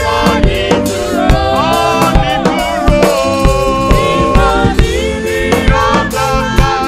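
Live gospel praise music: a man sings lead into a microphone with choir singers backing him, over a band with a drum kit keeping a steady beat.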